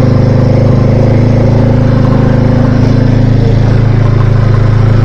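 ATV engine running steadily at low revs, an even drone that holds its pitch without revving up.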